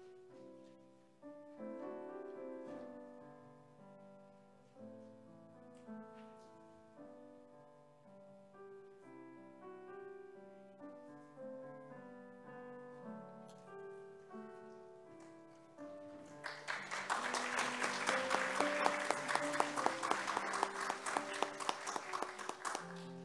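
Slow solo piano music playing. About sixteen seconds in, applause breaks out over the music, louder than the piano, and dies away just before the end.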